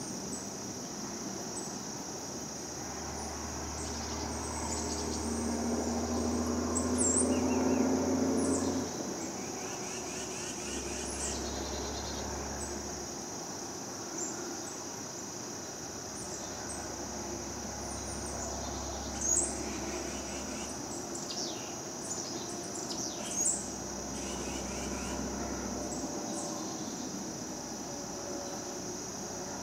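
Woodland insects droning steadily at a high pitch, with birds chirping over them. A low hum swells for several seconds to the loudest point, about 8 seconds in, then drops away, and there are two short sharp clicks in the second half.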